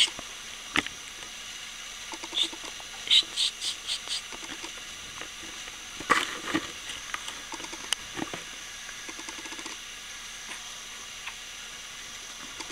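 A two-month-old baby's small sounds: soft grunts and mouth noises, with a brief yawning sound about six seconds in, over a faint steady hiss and a few light clicks.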